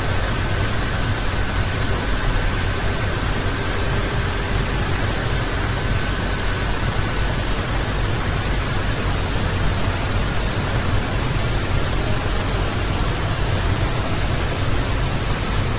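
Steady hiss of background noise, with a faint thin whine that fades out about halfway through. The music playing on screen is not audible.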